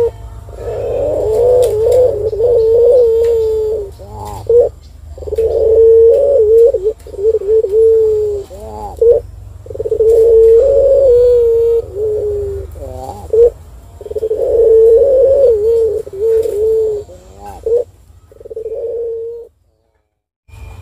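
Collared dove (puter) cooing: five long, drawn-out, wavering coos, each two to four seconds, with short gliding notes between them. A steady low hum runs underneath, and the sound drops out briefly near the end.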